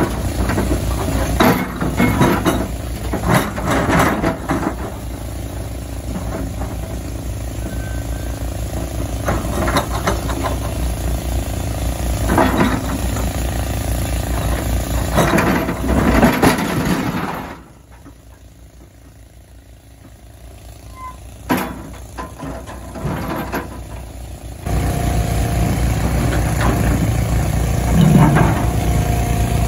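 Tata Hitachi Zaxis 120 excavator's diesel engine running while its bucket shoves a large boulder onto a steel tipper-truck body, with repeated scrapes and knocks of rock on metal. About two-thirds of the way through the sound drops to a faint murmur for several seconds, then the engine hum returns.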